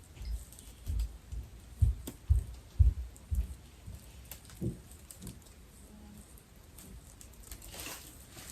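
Shopping-haul items being handled and set down on a surface: a quick run of soft low thumps for the first few seconds, then scattered light clicks and a brief rustle near the end.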